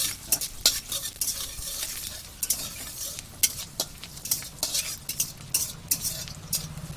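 Cumin seeds sizzling and crackling in hot oil in a pan, with a spoon stirring and clicking against the pan at irregular moments.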